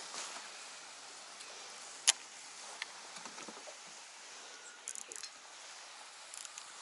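Shimano Calcutta Conquest BFS baitcasting reel and rod handled while a jerkbait is worked: one sharp click about two seconds in, then a few lighter high ticks around the middle and near the end, over a steady outdoor hiss.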